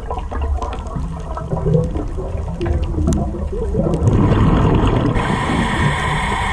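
Scuba diver breathing through a regulator underwater: a long exhale of bubbles gurgling and rumbling out, then the hiss of the next inhale through the regulator near the end.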